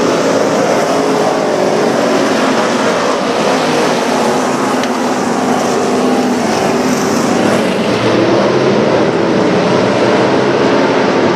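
A pack of dirt-track stock cars' V8 engines running at speed together: a loud, steady, dense drone of many engines at once, a little louder near the end.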